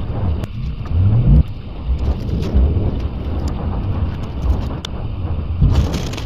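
Mercedes S400 Hybrid's 3.5-litre V6 engine running with a low rumble, rising briefly in a short rev about a second in.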